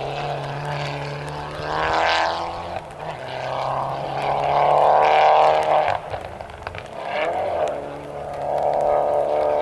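Rally car engine at high revs, heard from a distance, accelerating along a gravel stage. Its pitch climbs and drops sharply several times as it shifts gears, loudest about five seconds in.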